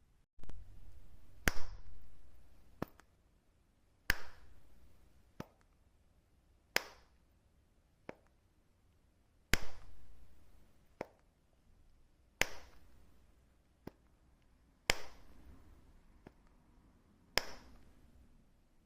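Sharp clicks or taps, one about every two and a half seconds, each with a short fading tail and followed by a fainter second click.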